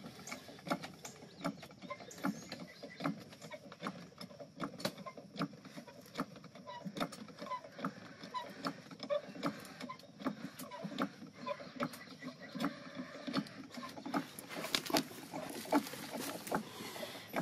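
A 20-ton hydraulic bottle jack's handle being pumped in steady strokes, about two clicks a second, as the jack lifts the building.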